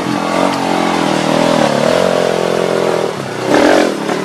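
Two-stroke dirt bike engines revving as they are throttled over rocks, the pitch rising and falling with each blip of the throttle. There is a sharp, louder rev about three and a half seconds in.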